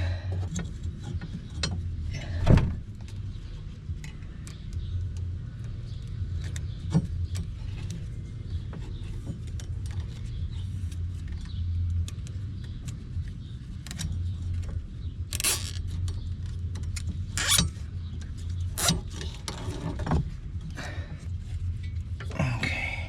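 Scattered sharp metallic clinks and knocks from hand tools and loose metal parts being handled, over a steady low hum.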